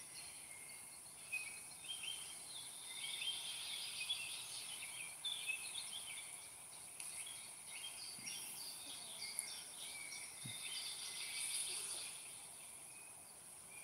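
Faint birdsong: many short chirping phrases, over a steady high-pitched hiss.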